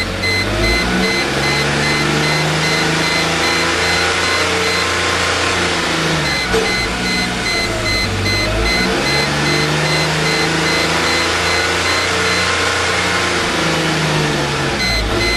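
1998 Mercedes E320's 3.2-litre V6 revved up twice, its pitch climbing and then falling back each time. It is misfiring on all cylinders, which the owner suspects comes from plugged catalytic converters.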